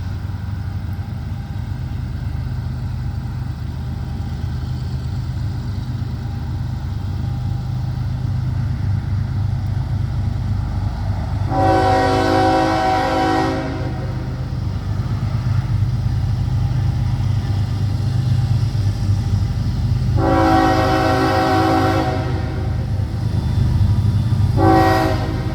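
Diesel freight locomotive's air horn sounding the grade-crossing signal: two long blasts about eight seconds apart, then a short one near the end. Under it the steady rumble of the approaching train grows louder.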